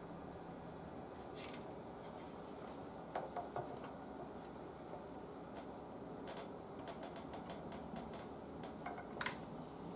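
Scattered light clicks and taps of hand tools and small parts being handled while an antique breadboard radio is reassembled, with a quick run of faint ticks a little past the middle and a sharper click near the end, over a steady low background hum.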